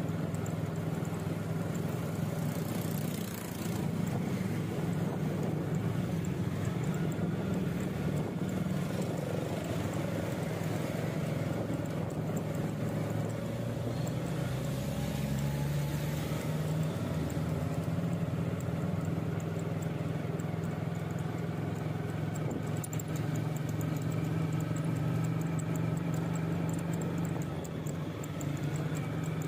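A vehicle's engine running steadily while driving through city traffic, with road and street noise, and a brief deeper rumble about halfway through.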